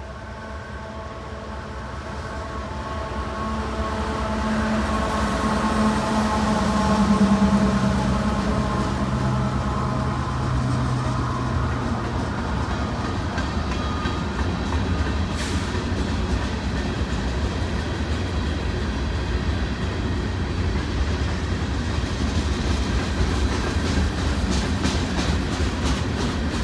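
Union Pacific freight train's three diesel-electric locomotives approaching and passing, their engine note growing louder to a peak about seven seconds in and fading by about twelve seconds. Then the steady noise of open-top hopper cars rolling by, with wheels clicking over the rail joints near the end.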